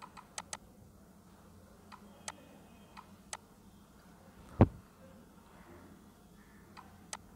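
Computer mouse clicking, a dozen or so sharp, irregular clicks, some in quick pairs, with one louder thump about two-thirds of the way through.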